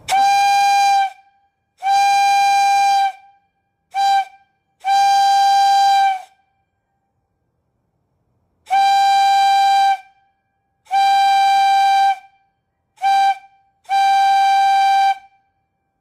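Lunkenheimer #12 single-chime brass whistle, 2 by 4 inches with an integral valve, blown in eight blasts of one steady, high pitch. The blasts come in two sets of long, long, short, long, the grade-crossing signal pattern, with a pause of about two seconds between the sets.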